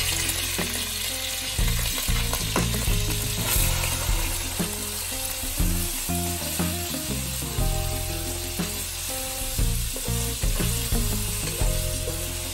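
Raw shrimp and squid sizzling in hot garlic oil in a non-stick wok, with the scrape and stir of a wooden spatula turning them. The sizzle is loud and steady, from seafood just added to the pan, and there is background music underneath.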